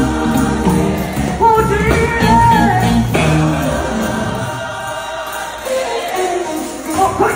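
Gospel choir singing live over instrumental backing. The deep bass notes drop away about four and a half seconds in, leaving the voices more exposed before the sound swells again near the end.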